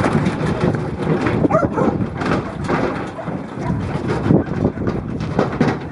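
Sheep being unloaded from a truck by working kelpies: a continuous jumble of knocks and clatter, with a few short animal calls.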